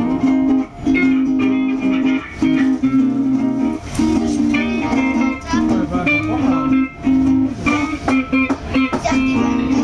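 Guitar improvisation: plucked notes and held, bending tones played continuously.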